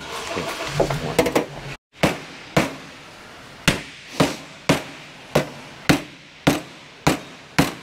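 A red mallet strikes a Ranger Raptor's Fox front shock, knocking the collar down it. About ten sharp, even blows, roughly two a second, start about two seconds in.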